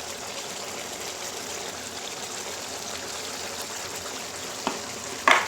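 Chicken curry, with hot water added, simmering and sizzling in the pan: a steady hiss. A short knock comes near the end, then a sharper, louder one.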